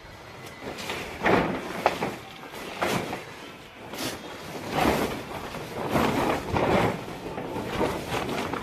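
Large white plastic tarpaulin rustling and crackling in irregular swishes as it is pulled, lifted and spread out by hand, with an occasional sharper snap of the sheet.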